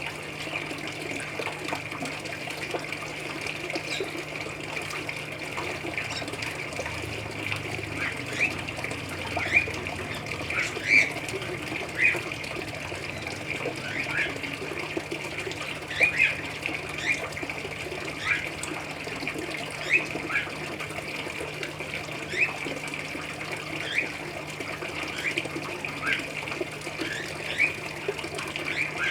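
Water splashing steadily into a koi pond, with small aviary birds giving short chirps every second or two, more often from about eight seconds in. A steady low hum runs underneath.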